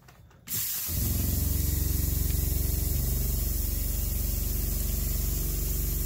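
Kitchen faucet turned on, starting about half a second in: a steady stream of hot water splashing into a frying pan in the sink. A steady low hum runs under it, the van's 12 V water pump running to feed the tap.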